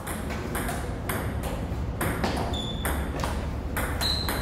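Table tennis rally: the ball clicks off the bats and bounces on the table in quick, uneven succession, about two hits a second. Two short high squeaks come in the middle and near the end.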